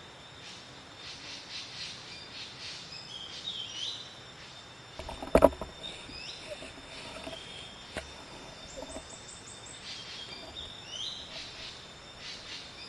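Forest birds chirping and calling in quick, repeated short phrases over a faint steady high hum, with one brief loud knock about five seconds in.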